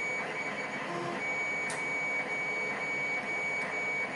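Steady background hiss with a thin high whine running through it, and one faint light tick about one and a half seconds in.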